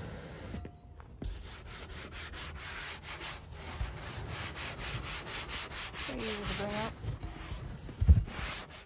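A sanding block rubbed by hand in quick, repeated back-and-forth strokes over the inside of a Jeep roof panel, scrubbing off old headliner foam residue. A thump comes near the end.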